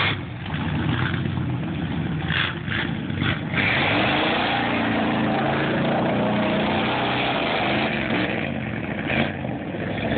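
1991 Chevrolet K1500 pickup's engine revving while driving through mud. About three and a half seconds in the revs climb and stay high, with a noisy rush over the engine note.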